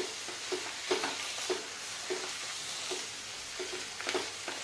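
Wooden spatula stirring and scraping a thick, drying mixture of grated bottle gourd in a nonstick kadhai, about two strokes a second, over a steady low sizzle from the hot pan.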